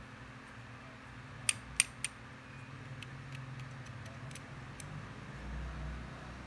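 Steel digital caliper being handled: three sharp clicks close together about a second and a half in, then fainter scattered ticks, over a low steady hum.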